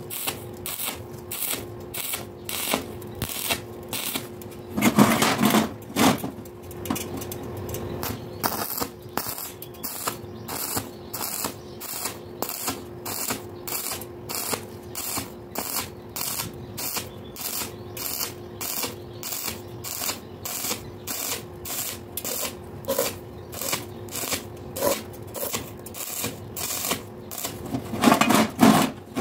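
Stick (arc) welding on thin-wall square steel tube: the arc crackles in short regular bursts, about two to three a second, as the rod is struck and broken in a pulsing rhythm along the seam to avoid burning through the thin wall. A louder low burst comes about five seconds in and again near the end.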